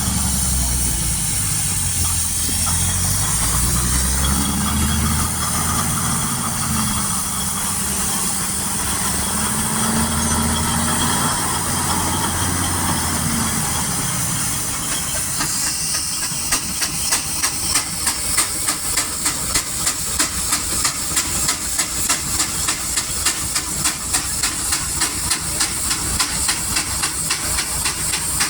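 Steam engine at work: a steady hiss of steam with a low engine drone that changes speed several times, and from about halfway through a regular exhaust chuff of about two beats a second under a continuous loud hiss.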